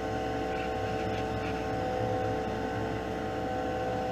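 Spray booth exhaust fan running steadily: a constant hum with several held tones over an even rushing noise.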